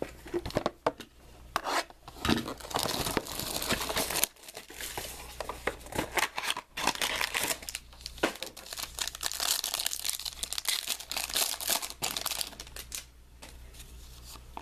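Trading-card pack wrapper being torn open and crinkled by hand as the cards are slid out, with a few sharp clicks and taps of handling at first and crackling through most of the stretch before it settles near the end.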